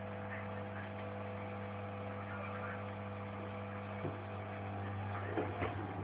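Top-loading washing machine running with a steady motor hum; a few soft knocks near the end.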